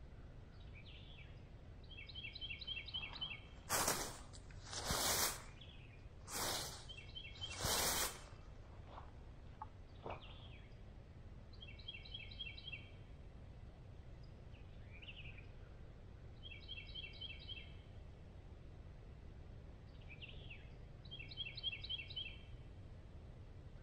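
Outdoor bird ambience: a small songbird repeats a short, rapid, high trill about every four to five seconds over a steady low rumble. Four loud, harsh bursts of sound come close together about four to eight seconds in.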